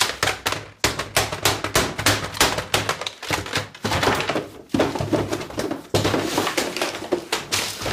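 Ring binders and other desk items being flung and swept off an office desk: a fast, unbroken run of thuds and clatters, with brief pauses around three, four and a half, and six seconds in.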